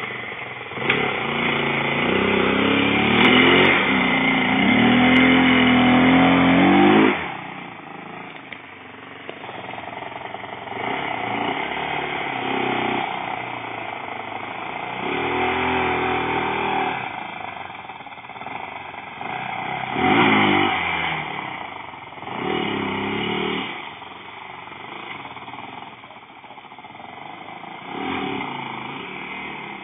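Quad bike (ATV) engine revving hard, its pitch rising and falling, loudest for the first seven seconds or so. After that it runs quieter, with short bursts of throttle every couple of seconds.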